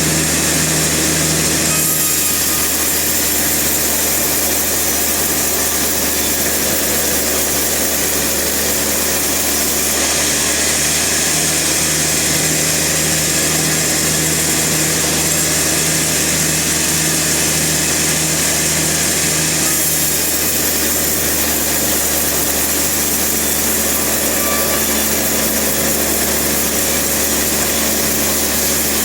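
Sawmill saw and machinery running steadily and loudly through a log cut, with a constant hum under it.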